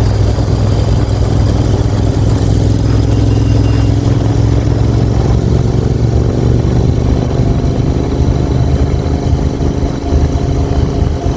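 Royal Enfield Continental GT 650 parallel-twin exhaust note running steadily at a low, even pitch.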